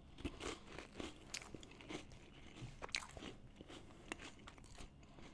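A person chewing a crisp round cracker spread with canned chicken salad: faint, irregular crunching.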